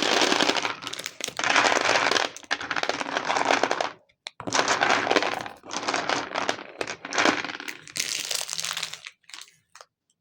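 Plastic packaging crinkling as it is handled, in two long stretches with a short pause about four seconds in, fading out near the end.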